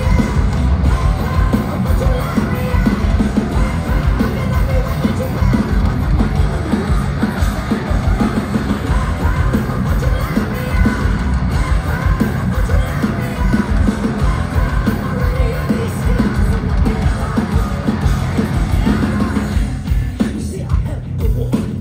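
Live metal band playing loudly through a concert PA, with vocals over distorted guitars and drums, heard from within the crowd. The sound thins out near the end.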